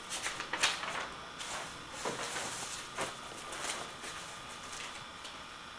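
Newspaper pages rustling and crackling in irregular bursts as they are turned and handled.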